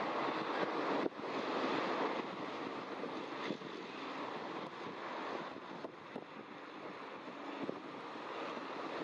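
Steady rushing of wind and sea, stronger for the first two seconds or so, with a few faint clicks.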